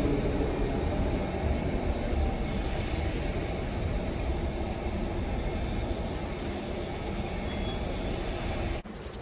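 A train running with a steady low rumble; about five seconds in a high, thin wheel squeal sets in, grows louder, and then cuts off suddenly near the end.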